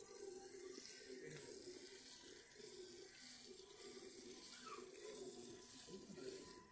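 Faint rhythmic squirts of milk from a water buffalo's teats hitting a metal pail during hand-milking.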